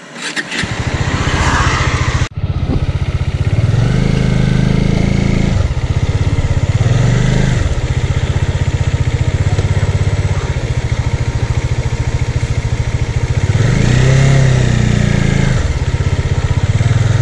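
Bajaj Dominar's single-cylinder engine heard from on the motorcycle, running at low speed with the revs rising and falling several times. There is a sudden break in the sound about two seconds in.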